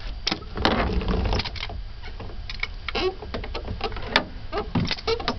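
Irregular clicks and rattles of a capsule-hotel pod's slatted blind being pulled down over the entrance.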